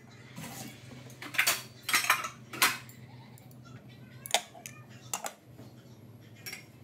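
Kitchenware clattering: a cluster of loud metal clinks from about one to three seconds in, then a single sharp clink as a glass lid is set onto a stainless steel pot, followed by a few lighter clicks. A low steady hum runs underneath.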